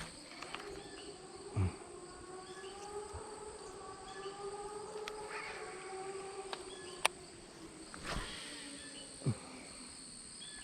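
Insects buzzing steadily at a high pitch in the background, with a faint low drone that slowly rises and falls. A few short knocks, the loudest about a second and a half in and another near the end.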